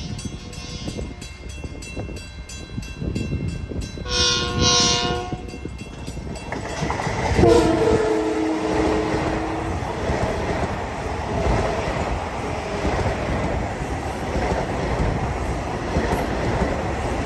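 Long Island Rail Road train sounding its horn, a short blast about four seconds in and a longer, louder one a few seconds later, as the train passes close by with a steady rumble and wheel clatter on the rails.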